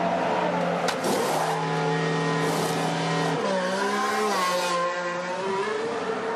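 Formula 1 pit stop: the Williams car's turbo V6 engine holds a steady note while pneumatic wheel guns whirr in short bursts. About three and a half seconds in, the engine pitch dips and rises as the car is released and pulls away.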